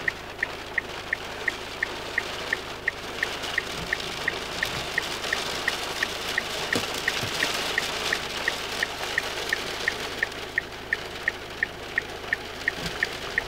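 Rain pattering on a parked car's windows and body, with a steady high tick about three times a second.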